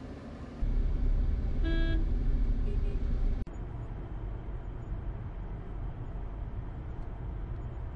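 Street traffic rumbling, with a vehicle horn honking once briefly just under two seconds in. After a sudden cut, the quieter steady low rumble of a moving car heard from inside the cabin.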